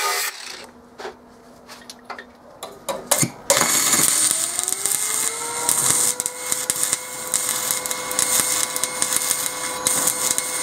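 An angle grinder cuts off right at the start, followed by a few scattered clicks. About three and a half seconds in, a stick-welding arc strikes and crackles steadily on cast iron, pulsing between 60 and 30 amps, while a whine rises and then holds at one pitch.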